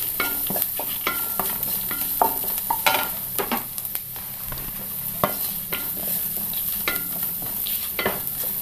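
Wooden spatula stirring and scraping shallots, green chillies and curry leaves frying in oil in a nonstick pan, with a steady sizzle and irregular knocks of the spatula on the pan. The chilli powder is being fried until its raw sharpness goes.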